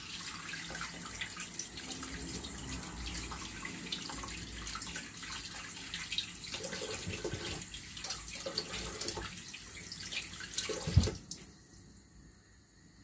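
Kitchen tap running with hands being rinsed under it, the water splashing. The water cuts off about eleven seconds in, right after a sharp knock.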